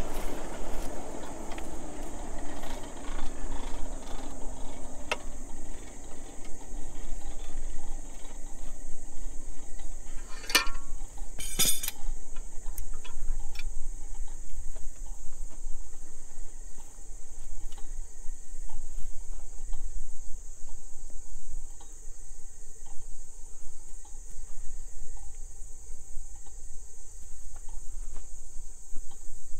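Steady high insect chirring, with a low hum beneath. A low tone sinks in pitch over the first few seconds, and a few sharp metallic clinks come about ten to twelve seconds in while the hot bar is twisted in the vise with a pipe wrench.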